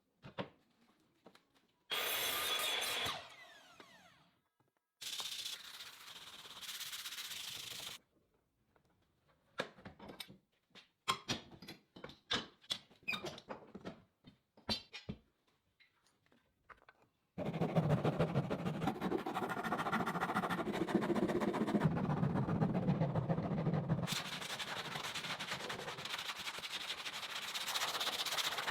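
Sanding and rubbing on wood in several short separate stretches that start and stop abruptly. A run of quick taps and scrapes comes in the middle. The longest, steadiest stretch of sanding comes in the second half.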